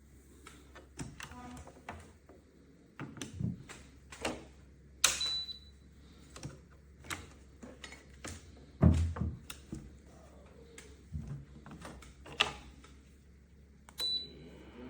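Irregular clicks and knocks of the electric heater being handled, with two short high beeps from its controls, one about five seconds in and one near the end.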